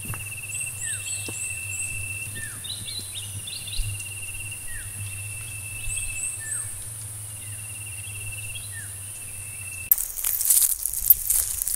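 Insects and birds calling: a long pulsing trill, short falling whistled calls every couple of seconds, quick runs of tiny high chirps, and a steady high insect hiss. About two seconds before the end this gives way to a crackling rustle of dry leaves.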